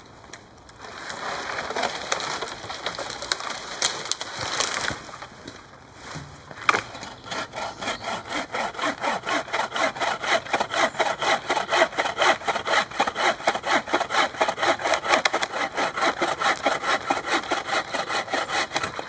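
Hand saw cutting through wood. A few rasping strokes come first, then a sharp crack about seven seconds in, then a steady fast rhythm of about four strokes a second.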